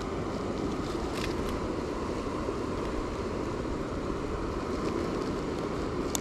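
Steady wind noise on the microphone: an even rushing hiss over a low rumble. There is a faint tick about a second in and a sharper click near the end.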